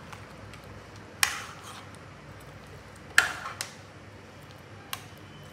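A steel spoon clinking against a stainless steel pot while stirring a thick mutton stew: a few sharp clinks, the loudest about a second in and about three seconds in.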